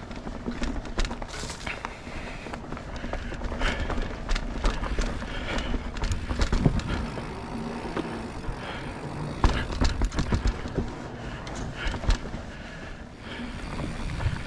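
Polygon mountain bike ridden over rough singletrack: tyres running on dirt under a steady rush of noise, with irregular sharp knocks and rattles as the bike hits roots and rocks.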